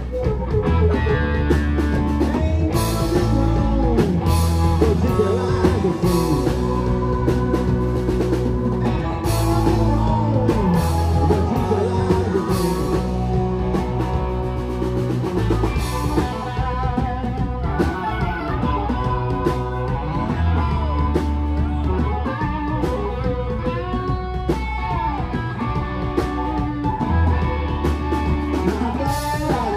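Live blues-rock band playing an instrumental passage: electric guitar with bending notes over bass and drum kit.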